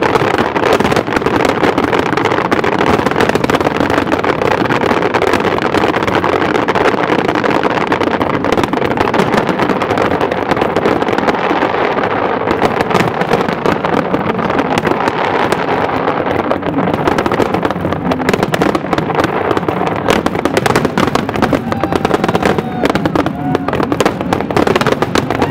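Fireworks crackling and popping in a dense, continuous volley of rapid small bangs.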